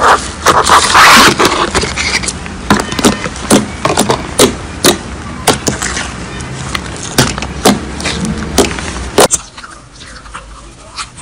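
Hands squeezing and poking slime: a run of irregular sharp pops and clicks, densest about a second in, becoming quieter and sparser near the end.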